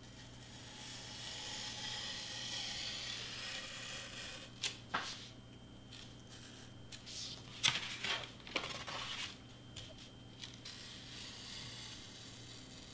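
Hand-held craft knife cutting through foam board: a scratchy scraping as the blade is drawn along for a few seconds, then several sharp clicks as the blade moves on through the board.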